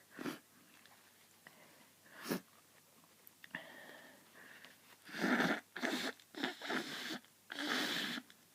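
A person with hayfever sniffling and breathing hard through a snotty nose after bouts of sneezing: a couple of faint sniffs, then a run of five or so short breathy bursts over the last three seconds.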